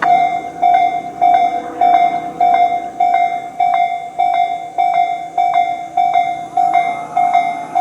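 Japanese railway level-crossing alarm ringing its repeated "kan-kan" ding, about one and a half strikes a second, each ringing on briefly.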